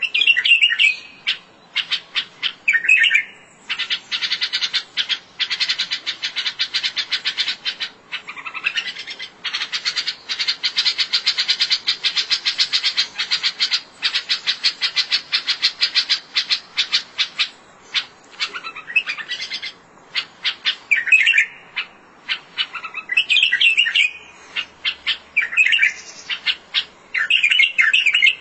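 A bulbul calling: long runs of rapid, evenly repeated chirps, broken by short, louder warbled phrases near the start, about three seconds in and again in the last third.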